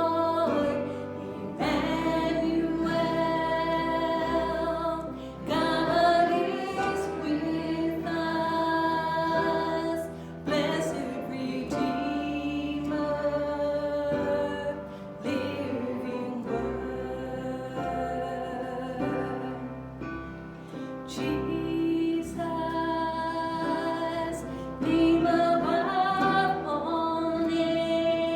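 Worship song: voices singing long held notes over instrumental accompaniment with a steady bass.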